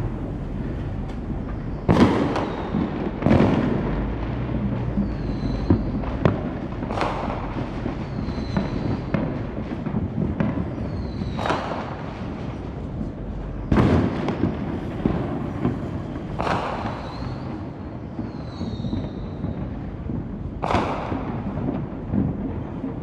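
Fireworks going off all around: a constant low rumble of distant bangs, with about seven louder sharp booms spaced a few seconds apart, the loudest about two seconds in and near fourteen seconds. A few brief high whistles sound between the booms.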